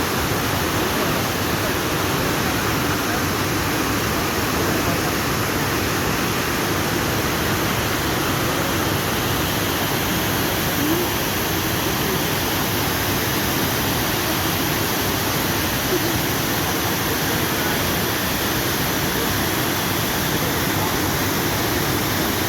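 Steady, unbroken rush of falling water from Abbey Falls, a waterfall.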